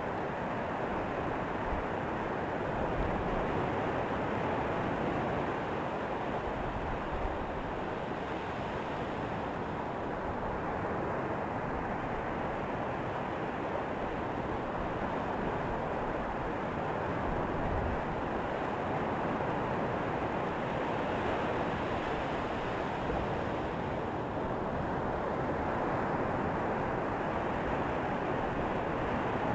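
Steady surf breaking and washing up the beach, with wind rumbling on the microphone.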